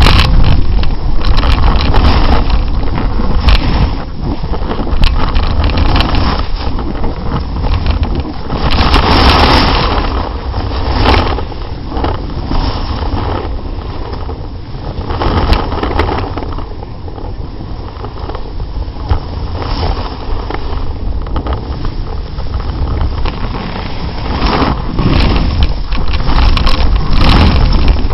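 Snowboard edge scraping over snow with wind buffeting the leg-mounted camera's microphone in a constant low rumble, easing off for a while in the middle and building again near the end.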